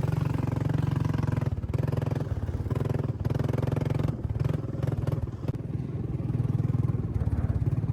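ATV (quad bike) engine running steadily, its note easing off briefly a few times.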